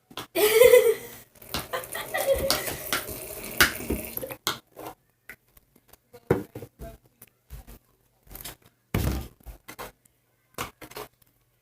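Slime being mixed in a bowl: rubbing and scraping with short knocks against the bowl. The busiest stretch comes in the first four seconds, then scattered knocks, the loudest about nine seconds in.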